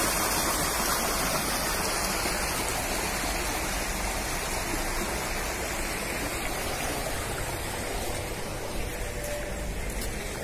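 Floodwater rushing through an open rainwater drain (nala), a steady wash of churning water that eases a little toward the end.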